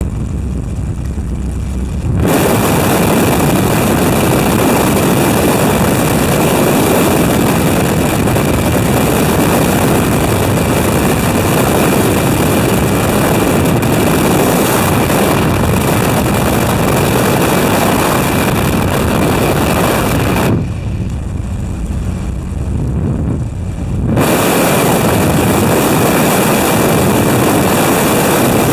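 Fairchild PT-19's Ranger inline-six engine and propeller running, heard from the open cockpit with heavy wind rush over the microphone. The noise is quieter for the first two seconds, then drops off for a few seconds about two-thirds of the way through before returning.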